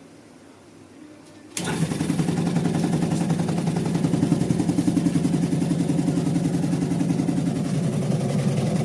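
Sinmag electric bread slicer switched on about a second and a half in, its motor and reciprocating blade frame running steadily with a fast, even chatter.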